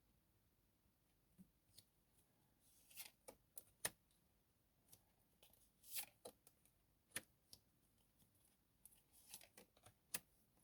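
Near silence, broken by a few faint, scattered clicks and rustles of tarot cards being handled on a table.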